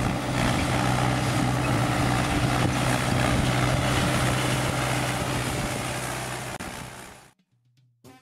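Sonalika Worldtrac 90 tractor's diesel engine running steadily as the tractor drives across the field, a steady drone under a broad rushing noise. It fades away about seven seconds in.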